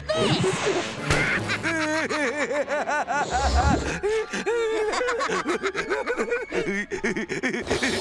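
Cartoon voices laughing and snickering in quick, repeated ha-ha syllables, with a low thud about three and a half seconds in.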